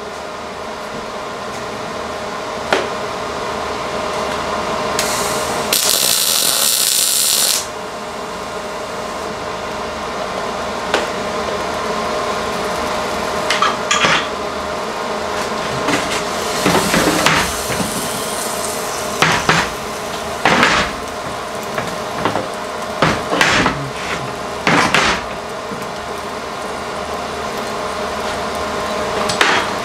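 A short burst of MIG welding arc crackle about six seconds in, lasting under two seconds, over a steady shop hum. In the second half, a string of sharp metal knocks and clanks on the steel axle.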